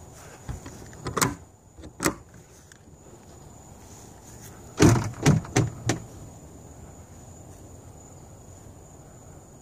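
Plastic latches of a Rola hitch-mounted cargo pod clicking open, then its plastic lid being handled, with a quick run of four knocks about five seconds in.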